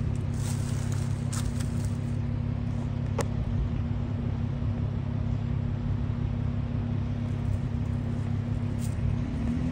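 Jeep Wrangler engine running at steady low revs as the Jeep creeps slowly along a dirt trail, its pitch starting to rise right at the end as it is given more throttle.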